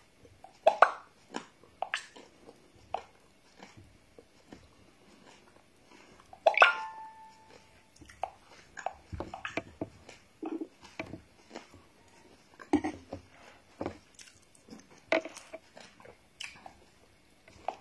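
Eating sounds: chewing and biting of soaked garri and coconut, with a metal spoon clicking on a ceramic bowl, in scattered short clicks and crunches. About six and a half seconds in, one louder clink rings briefly.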